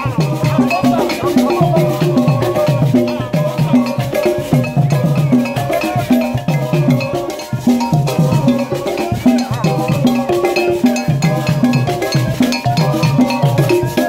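Benskin dance music played on hand drums with painted barrel bodies, beaten by hand in a steady, repeating rhythm, with other percussion over it.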